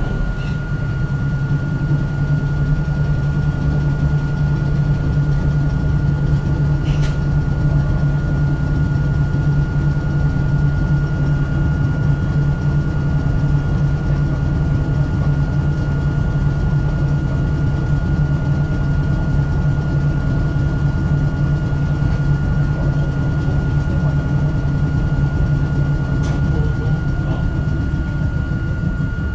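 Hakone Tozan Railway Moha 1 electric car standing still, its onboard equipment giving a loud, steady low hum with a thin, even high whine over it.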